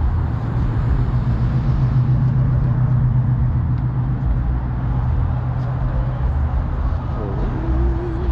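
Motor vehicle engine running steadily, a low hum that swells about two to four seconds in and then eases.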